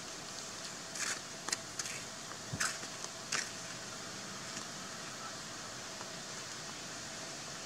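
Steady outdoor background hiss with a faint steady hum. About a second in, it is broken by five or six brief, sharp sounds over the next two and a half seconds.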